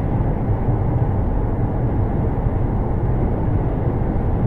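Steady low rumble of road and engine noise heard inside a car cruising at highway speed, picked up by a dashcam's microphone.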